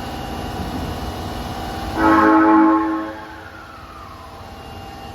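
A Tanimachi Line subway train's horn sounds once, a single pitched blast about a second long, starting about two seconds in over the train's running noise. After it a falling whine fades away.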